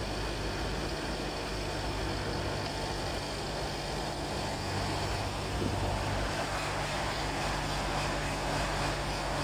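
Steady engine drone and tyre-on-road noise heard from inside a vehicle's cabin while it drives at an even speed.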